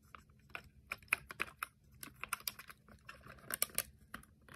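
Plastic LEGO pieces clicking and rattling as they are handled and fitted together: a run of light, irregular clicks.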